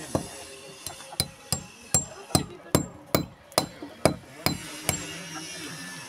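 Claw hammer driving a nail into a concrete block wall: about a dozen sharp blows, roughly two or three a second, some with a short metallic ring, stopping about five seconds in.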